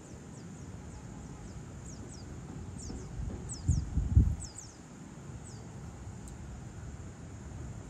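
Birds calling in short, high, quickly falling chirps, repeated several times and thickest about three to five seconds in, over a steady soft outdoor hiss. A gust of wind buffets the microphone about four seconds in.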